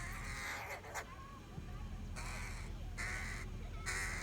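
A crow cawing: one longer harsh caw, then three shorter caws about a second apart.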